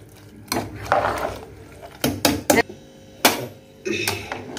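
Steel ladle knocking and scraping against the sides of an aluminium pressure cooker while stirring cooked wheat mixed with jaggery and grated dry coconut, in several irregular knocks.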